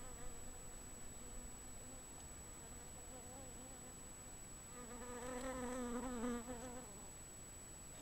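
A flying insect buzzing, its drone wavering in pitch; it stays faint, then grows louder for about two seconds past the middle before dropping back.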